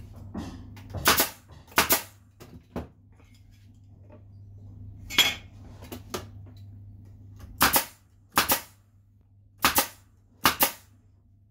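Einhell pneumatic nailer-stapler firing nails into a wooden frame with sharp, gun-like shots, about seven in all, mostly in pairs less than a second apart. Each pair nails a joint of the frame.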